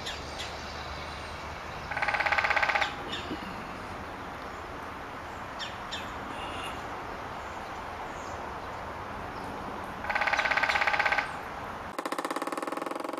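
A woodpecker drumming: two rolls of very rapid knocks, each about a second long and about eight seconds apart, over steady outdoor background with faint small-bird chirps. Near the end the recording changes to another fast rattling train of pulses.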